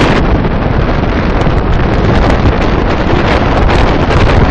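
Wind buffeting the microphone of a camera in a moving vehicle, a loud, steady rush over low road and engine rumble.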